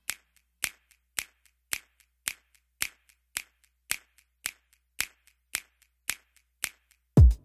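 Steady handclap beat, a sharp clap about every half second with faint ticks between, as in a clap-only break of a dance track. The full track with heavy bass comes back in just before the end.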